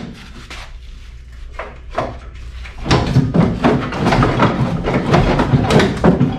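Hand work under a VW Bay Window bus's rear engine while it is being removed: a few scattered knocks, then from about halfway a quick, uneven run of loud knocks and clunks.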